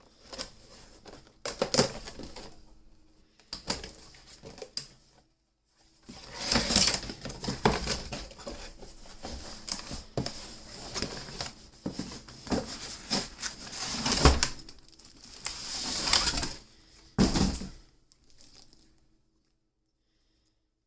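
A motorcycle helmet being unpacked: cardboard box and packaging rustling and scraping in irregular bursts, with a sharp knock about 17 seconds in. The handling stops about 18 seconds in.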